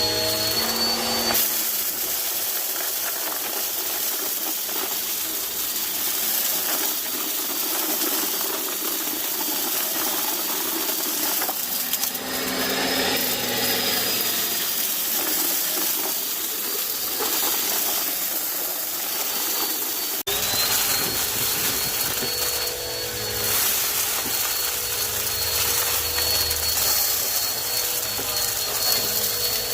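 Vacuum cleaner running with a steady high motor whine over a rush of air, with clicks and rattles as debris is sucked up. The sound changes abruptly about twenty seconds in, the whine jumping slightly in pitch.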